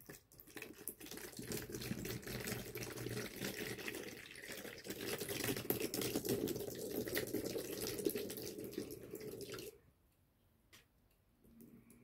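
Orbeez water beads and water being poured through a funnel into a small bottle: a steady pour of water with many small clicks of the beads, which cuts off suddenly near the end.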